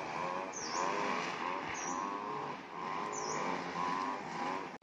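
A motor engine runs at a distance, its pitch slowly rising and falling as it revs. A bird's short high dipping call sounds three times over it.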